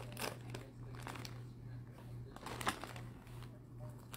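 Clear plastic bag crinkling as a bagged football jersey is handled and held up, a few short rustles with the loudest about two and a half seconds in, over a faint steady low hum.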